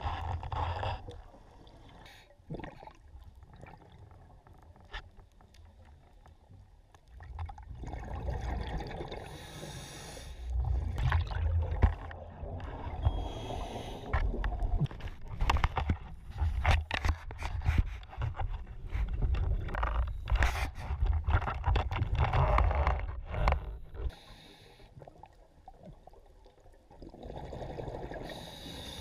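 A diver breathing underwater: hissing breaths and rumbling bursts of exhaled bubbles with many small clicks. The bursts come after several quieter seconds.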